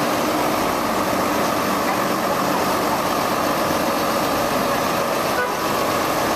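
Food truck's engine running steadily as the truck moves slowly up along the curb.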